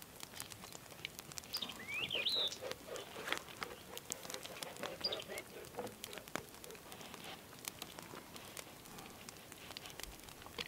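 Close handling of a slingshot as its flat rubber bands are fitted and tied onto the frame: scattered small clicks and rustles, with a few short rubbery squeaks about two seconds in.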